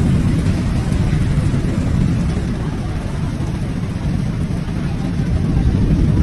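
Heavy rain pouring steadily, heard as a dense, deep rushing noise without a break.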